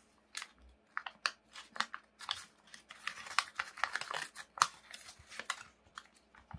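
Creased origami paper crackling and crinkling as it is unfolded by hand: a quick, irregular run of sharp paper crackles.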